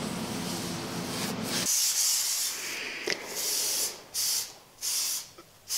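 A cloth wiping the bare sheet-metal van floor, then from about two seconds in, spray adhesive hissing onto Minicell foam strips in a series of short bursts.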